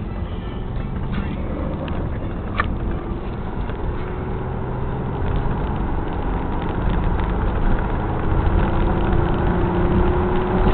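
The 1996 Nissan Maxima's 3.0-litre V6 running, with a low steady rumble. Its tone slowly rises and the sound grows louder over the second half.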